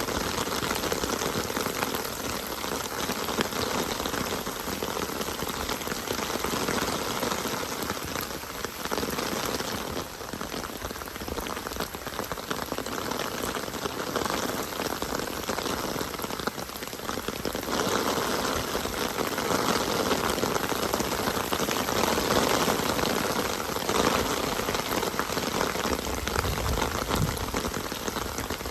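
Steady rain falling, a dense patter of drops that grows a little heavier about two-thirds of the way through.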